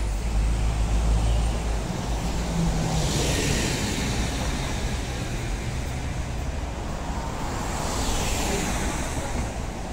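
Road traffic passing close by: a bus engine's low rumble at first, then two vehicles swishing past, a taxi about three seconds in and a large vehicle about eight seconds in.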